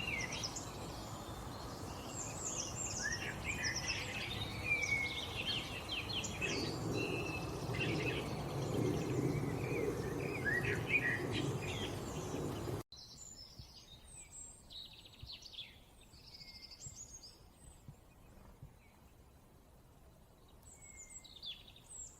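Several songbirds chirping and trilling in quick, overlapping calls over steady background noise. About thirteen seconds in, the sound cuts abruptly to a quieter stretch with fewer, more spaced-out chirps: a splice between two recordings.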